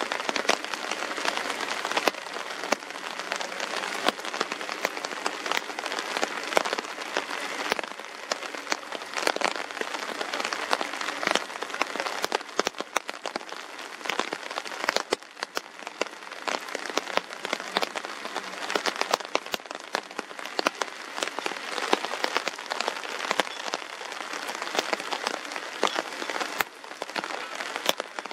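Steady rain falling, with many sharp drop hits close by.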